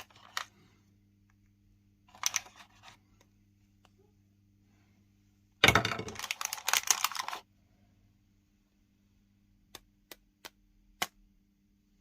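Handling noises: short bursts of rustling, a longer, louder rustling burst about six seconds in, then four sharp clicks near the end, over a faint steady hum.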